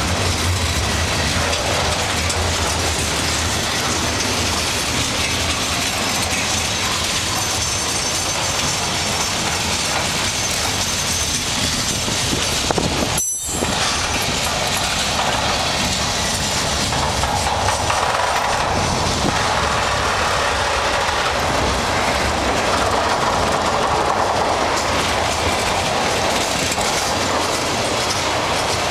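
Tank cars, boxcars and autoracks of a long mixed freight train rolling steadily past on the rails, with a brief dropout near the middle.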